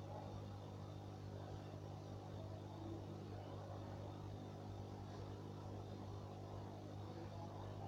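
Steady low electrical hum of aquarium equipment, a pump buzzing at an even pitch, with no other event standing out.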